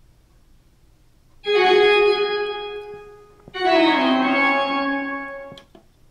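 Music played from a compact disc on a 1980s Pioneer PD-4050 CD player through a stereo receiver's speakers: two long sustained chords, about two seconds each, starting about a second and a half in. The lower notes of the second chord slide down at its start. The second-hand player reads and plays the disc.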